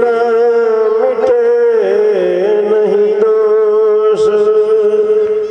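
A man's voice, amplified through a microphone, chanting one long drawn-out note in a devotional chant. He slides up into the note and holds it with a slight waver for about five seconds before it falls away.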